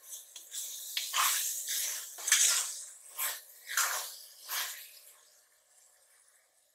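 Metal ladle stirring and scraping thick onion-tomato masala as it fries in an aluminium pressure cooker, about seven strokes that stop about five seconds in; the masala is being sautéed until the oil separates.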